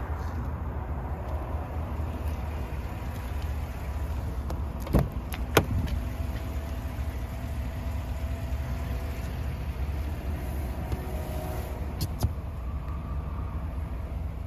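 Steady low rumble of a Chevrolet Silverado's 6.2-litre V8 idling, with a few sharp clicks: two close together about five seconds in and one more about twelve seconds in.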